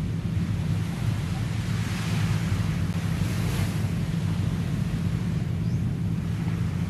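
Sea waves washing onto a beach, with wind buffeting the microphone in a steady low rumble; the hiss of the surf swells around the middle.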